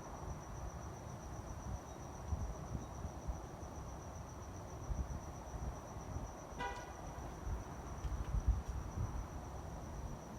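Night ambience: a steady, high, pulsing cricket trill over a low rumble, with a single short toot about two-thirds of the way through, like a distant car horn.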